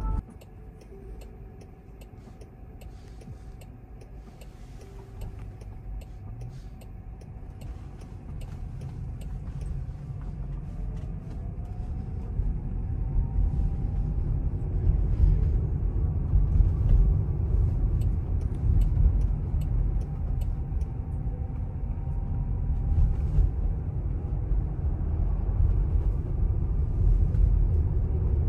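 Low road and tyre rumble inside the cabin of a moving Jaguar I-Pace electric car, growing louder over the first half and then holding steady.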